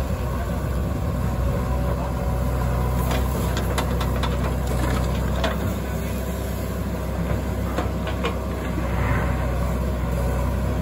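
JCB 3DX backhoe loader's diesel engine running steadily as the backhoe works, with several sharp knocks and clanks from the arm and bucket as it digs earth and dumps it into a lorry.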